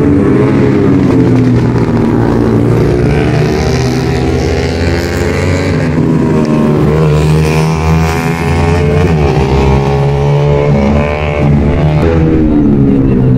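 Motorcycle engines revving and passing in a race, several at once, their pitch rising and falling.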